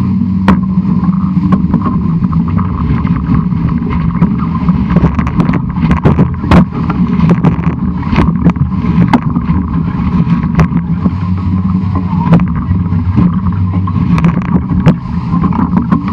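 Sailing noise picked up on the mast of a historic 18-foot skiff running fast under sail: a steady low hum from the rig with frequent, irregular sharp knocks and clicks from the mast and its fittings.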